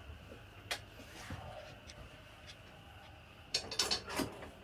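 Quiet small-room tone with a few soft clicks and taps, bunched together about three and a half to four seconds in.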